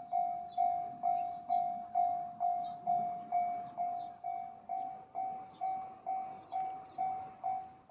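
Japanese railway level-crossing warning bell ringing its repeated 'kan-kan' note, about two strikes a second, each strike fading before the next.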